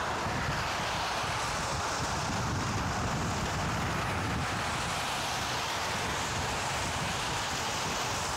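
Steady rush of wind over the microphone mixed with bicycle tyre hiss on a wet path, riding at speed.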